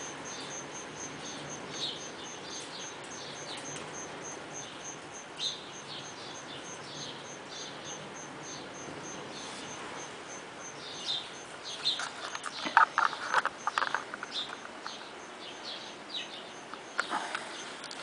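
Small birds chirping in short, scattered calls over an even, faint high-pitched ticking about three to four times a second, with a louder flurry of sharp clicks and chirps about two-thirds of the way through.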